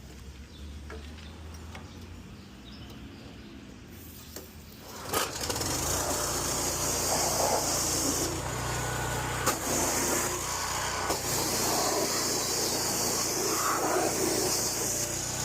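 A small gasoline engine comes on suddenly about five seconds in and runs steadily, with a hiss over it. Before that there is only a faint low hum.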